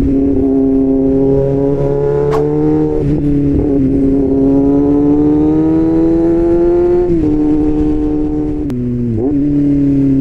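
Kawasaki Z750 inline-four running at high revs through an aftermarket SC-Project-style exhaust, heard from the bike itself. The engine note climbs slowly, then eases off briefly about seven seconds in and again near nine seconds before picking up again.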